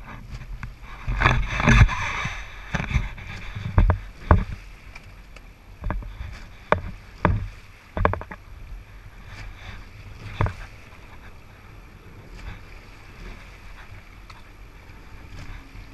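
Rowing eight under way: sharp knocks of oars turning in their gates and blades working the water at the strokes, over a steady wash of water. The knocks come irregularly, mostly in the first ten seconds, and fade to a quieter steady wash after that.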